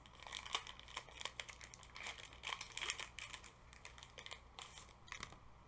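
Foil Pokémon card booster pack wrapper crinkling as it is torn open and handled: faint, irregular crackles that thin out near the end.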